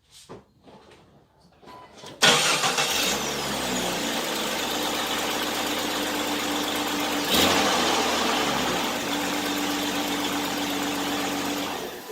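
1999 Jeep Cherokee XJ engine started about two seconds in and running steadily with the serpentine belt off, so only the crankshaft pulley turns, with a brief swell about halfway through. The rattle is not heard, which points to one of the belt-driven pulleys, likely a loose water pump pulley, as its cause.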